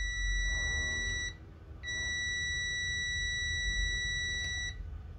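A UNI-T clamp meter's continuity buzzer sounds a steady high beep, cutting out for about half a second twice. The beep signals that the electric-scooter brake lever's sensor switch is closing the circuit, so the brake sensor is working.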